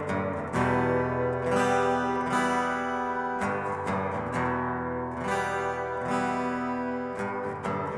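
Acoustic guitar and banjo playing an instrumental break of a folk song, strummed chords ringing on with no singing.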